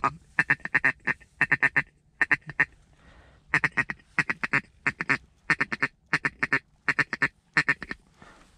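Mallard duck call blown in quick runs of hen quacks, one run after another with a short break partway through, stopping shortly before the end. This is hunters calling a flock of mallards in over the blind.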